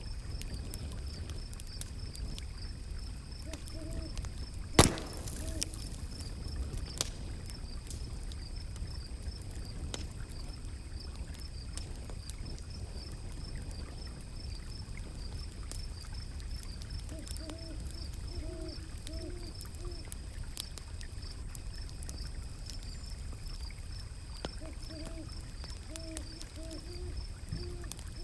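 A wood fire crackling, with scattered small pops and one sharp loud pop about five seconds in, over a steady low rush of river water. A continuous high insect trill runs under it, and short runs of soft, low hooting calls come a few times, near the start, in the middle and near the end.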